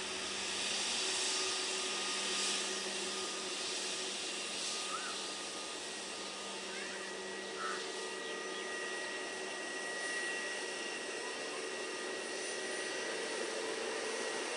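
Jet noise from a Boeing 777-F's GE90 turbofans at take-off power as the freighter climbs away: a steady rushing hiss with a thin whine running through it.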